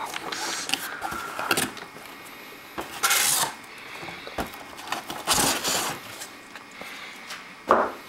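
Cardboard packaging, a moulded pulp insert and a plastic bag being handled and pulled about as a boxed toaster oven is unpacked: rustling and scraping in a few short bursts, the loudest about three and five and a half seconds in, with small clicks and knocks between.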